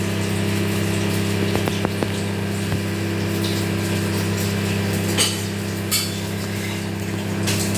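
Microwave oven running with a steady electrical hum from its magnetron supply while the turntable turns, and a few light clinks near the end from the cup on the glass tray.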